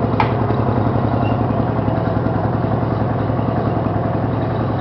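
Craftsman 18-horsepower lawn tractor's twin-cylinder engine running steadily, at a constant speed.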